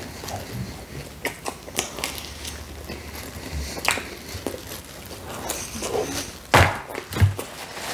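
Close-miked chewing of a bite of pizza crust, with small wet clicks and paper rustling, then two sharp knocks a little over half a second apart near the end.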